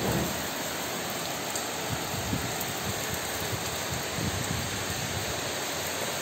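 Rain falling steadily on trees, potted plants and a wet paved yard: an even hiss.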